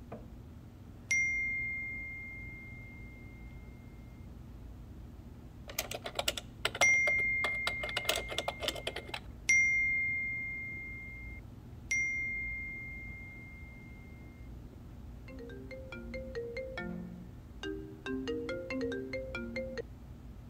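Four bright single-tone notification pings, each ringing out for a couple of seconds, with a burst of laptop keyboard typing around the second ping. From about fifteen seconds in, a phone ringtone plays a short melody of low notes, twice.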